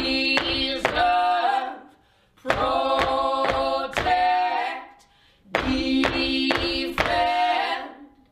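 Unaccompanied singing by several voices in harmony, in three phrases of about two seconds each with short breaks between them, marked by sharp percussive hits.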